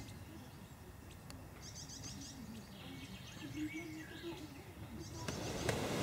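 A small songbird singing short phrases of quick, high repeated notes, twice, over faint outdoor background. Wind noise on the microphone rises near the end.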